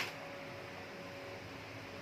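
Steady hiss of room tone, with a single sharp click at the very start.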